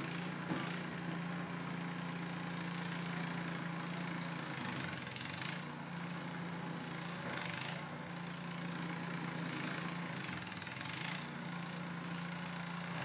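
An engine running steadily with a low, even hum, with a few soft brushing sounds over it.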